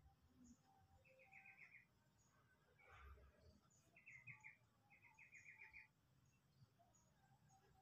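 Faint bird calls: quick runs of five or six short, high chirps, repeated three times, with a soft knock between the first two runs.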